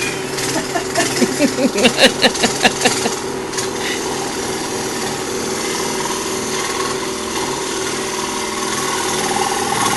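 Electric saw running and cutting wood, with a steady motor hum. A quick pulsing of the blade working through the wood comes in the first few seconds.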